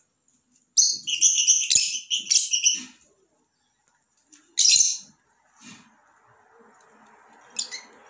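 Rosy-faced (peach-faced) lovebird calling: a rapid run of loud, high-pitched chirps for about two seconds, a single loud call about halfway through, and a brief one near the end.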